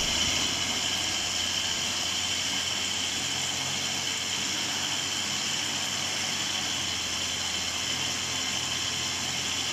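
Electric countertop blender running steadily at a constant speed, its motor blending a liquid cake batter of eggs, sugar and melted ghee in a glass jar.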